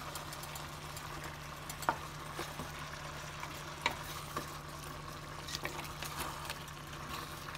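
Wooden spoon stirring chicken drumsticks in a stainless steel pot of simmering curry, with a few light knocks of the spoon against the pot over a faint, steady sizzle.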